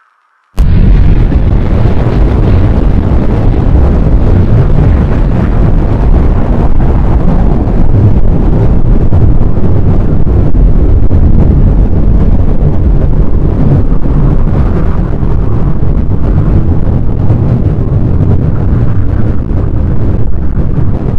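Sound-designed solar eruption (coronal mass ejection blast) effect: it bursts in suddenly about half a second in, then keeps going as a continuous, very loud, deep rumbling noise with most of its weight in the bass.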